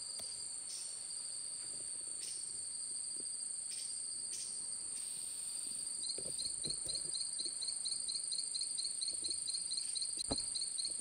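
Chorus of insects trilling steadily at a high pitch, joined about six seconds in by a second insect chirping rapidly, about five chirps a second. A soft knock near the end.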